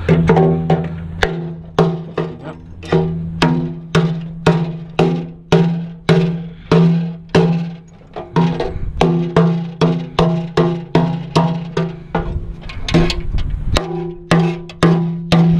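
Background music with a steady percussive beat of sharp, pitched knocks, about two a second, over a held low note.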